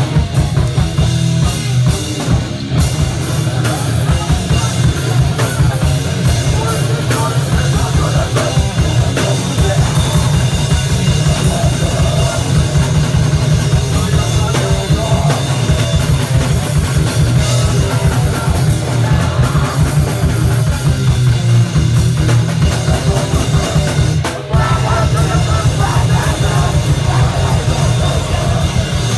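Live rock band playing loudly, driven by fast, dense drumming on a full drum kit, with a brief break about 24 seconds in.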